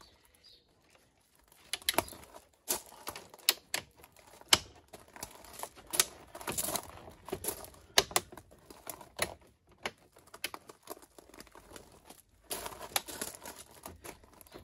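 Plastic clips of a genuine MINI F56 black grille surround clicking and snapping into the front bumper as it is pressed into place. The clicks come irregularly, one every second or so, with plastic rubbing and rattling between them.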